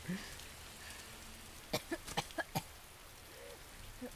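Steady rain falling in a show's soundtrack, faint. A child coughs a few times in quick succession a little under two seconds in.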